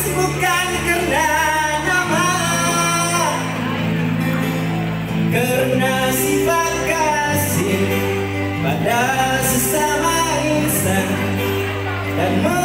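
A man singing a song into a microphone over backing music with steady bass notes, holding long notes with vibrato.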